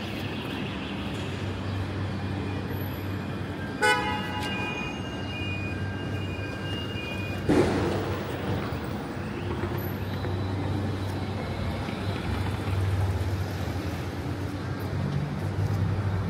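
Street traffic with a steady low engine hum. About four seconds in, a vehicle horn sounds in short broken toots for about three seconds, followed by a brief loud burst of noise.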